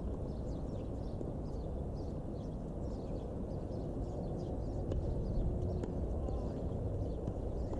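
Outdoor ambience at a tennis court: a steady low rumble with faint, scattered high chirps, and a couple of light clicks about five and six seconds in.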